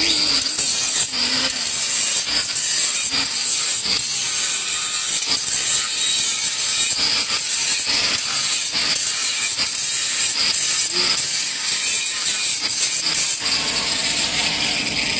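TIG (GTAW) welding arc on carbon steel pipe: a steady hiss with fine crackling, starting suddenly and easing off near the end.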